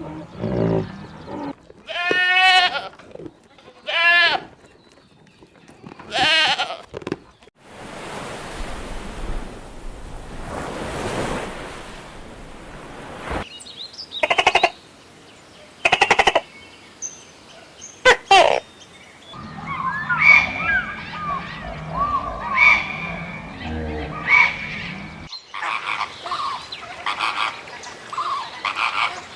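A run of different animal calls one after another, opening with about three quavering bleats of a goat or sheep. These are followed by a stretch of noise, a few short sharp calls and then busy chirping calls.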